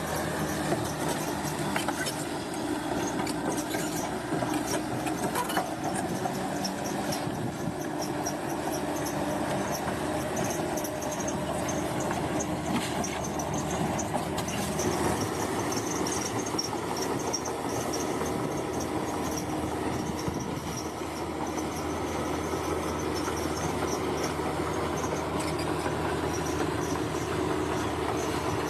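Large bulldozer's diesel engine running steadily, with frequent metallic clicks and clatter over it.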